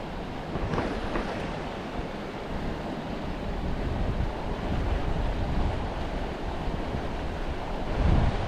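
Wind buffeting the microphone over a steady rush of water, with a louder low gust near the end.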